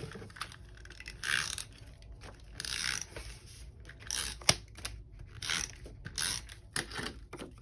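Paper pieces being handled on a planner page: about half a dozen short rustling, scraping sounds, with a sharp click about four and a half seconds in.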